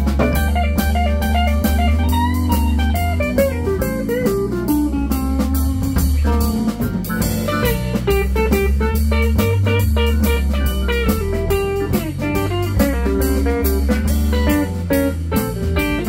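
Live band music from an electric guitar, keyboard and drum kit trio playing a blues groove. It has a steady drum beat, a stepping low bass line and melodic guitar lines on top.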